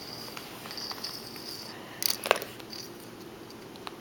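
A few sharp plastic clicks about two seconds in as a Lego minifigure is handled against a tile floor. A faint high whine comes and goes in the first two seconds.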